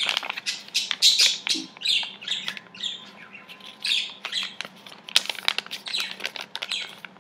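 Sheet of scrap paper rustling and crinkling in short, irregular bursts as it is folded by hand along its creases during origami.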